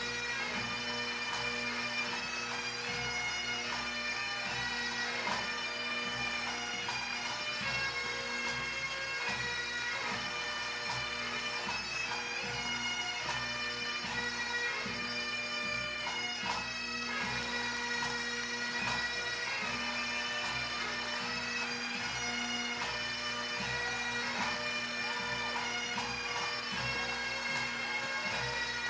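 Bagpipe music: a steady drone held underneath a chanter melody of changing notes.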